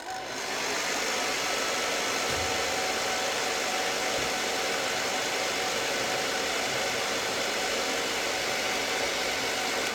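Handheld hair dryer running steadily, a loud even rush of air with a faint motor whine, switched on at the start and off near the end.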